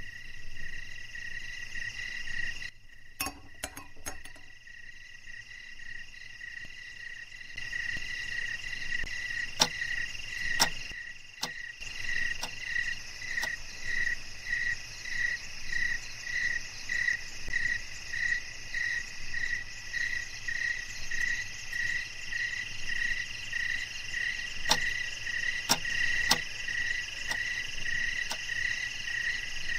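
Night ambience of chirping crickets or frogs: a steady chirp pulsing about twice a second, with a few sharp clicks.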